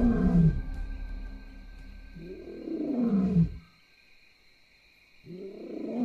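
Lion roaring: two long, deep calls about three seconds apart, each rising and then falling in pitch, with a faint steady high whine behind.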